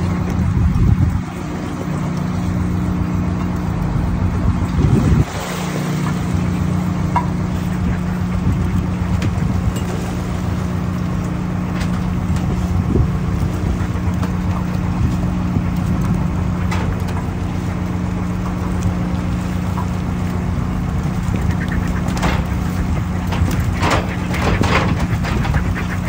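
A fishing boat's engine running with a steady hum, with low rumbles of wind on the microphone twice in the first five seconds. Near the end comes a quick run of seabird calls.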